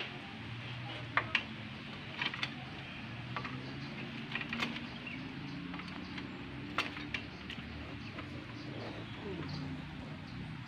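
Scattered metallic clinks and taps of hand tools on a motorcycle's frame and engine as parts are unbolted for engine removal, over a low steady hum.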